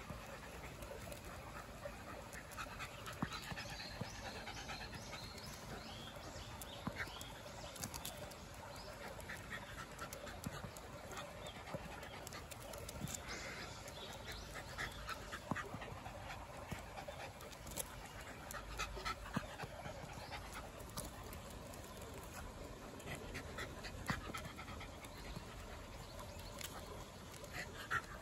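Shiba Inu panting steadily, with scattered small clicks.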